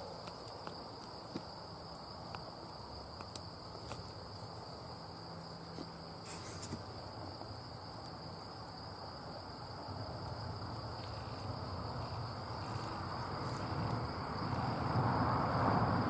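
A steady, high-pitched insect trill. Through the second half a low rumble grows steadily louder and is loudest at the end.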